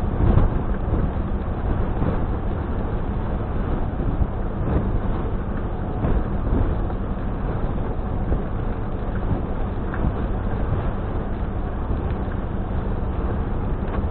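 Steady low engine rumble with a constant hum underneath, heard from inside a car's cabin aboard a car ferry.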